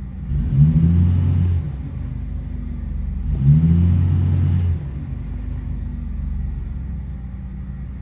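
2008 Chevrolet Express van's engine at idle, revved twice by quick throttle snaps, each rev rising and dropping back to idle within about a second and a half. The engine is misfiring, with the misfires counted on cylinder 1.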